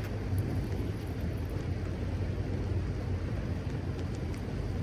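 Rooftop package AC unit running with a steady low hum, with an even rushing noise over it.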